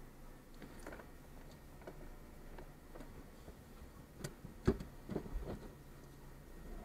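Level crossing barriers lifting: scattered faint clicks, then a cluster of sharper knocks and one low thump about four to five seconds in.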